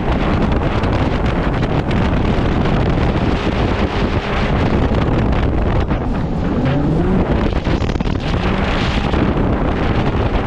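Jet boat running at speed under way, its engine and water noise largely buried under heavy wind buffeting on the microphone. A brief rising tone shows about two-thirds of the way through.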